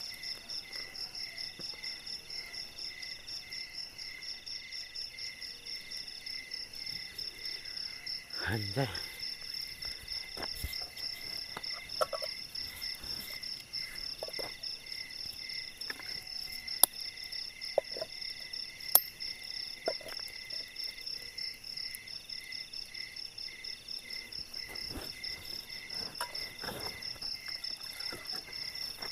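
Night chorus of crickets and other insects: several high trills pulsing rapidly and steadily together. Occasional clicks and knocks of camp cookware being handled, two sharp clicks standing out loudest in the second half.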